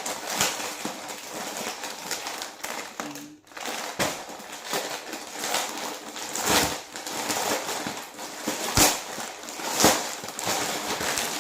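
Parcel packaging being opened and handled: plastic and paper crinkling and rustling, with irregular sharp crackles.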